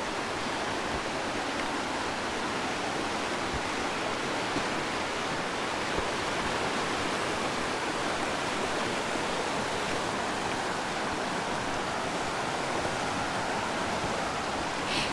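Gray Wolf River rushing steadily over its rocky bed: a constant, even roar of flowing mountain river water.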